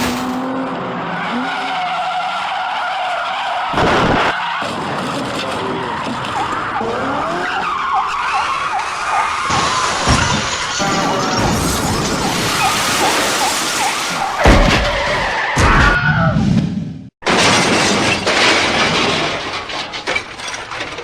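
A dubbed-in mix of comic car sound effects: tyres skidding, several crash impacts and shattering, with siren-like tones. The sound cuts out abruptly near the end, then comes back as a steady noise that fades away.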